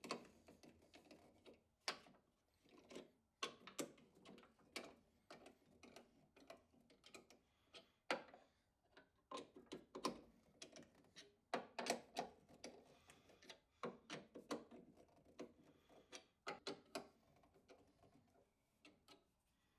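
Hand-turned socket driver working hex-head bolts into a wooden clamp jaw: a quiet run of irregular metallic clicks and ticks from the socket on the bolt heads and the turning threads.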